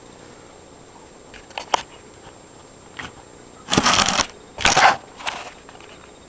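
Handling noise: a few light clicks, then two louder rustling scrapes of about half a second each a little after halfway, and a fainter one just after.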